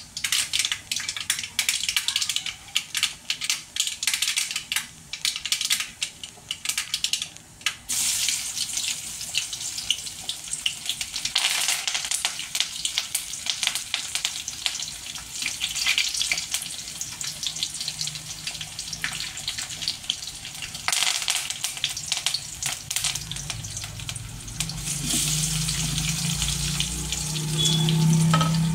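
Hot oil sizzling in a steel kadai as a tempering of mustard seeds, curry leaves and garlic fries, crackling sharply for the first several seconds and then settling into a steady sizzle. Near the end chopped onions and dried red chillies are frying and the sizzle gets louder.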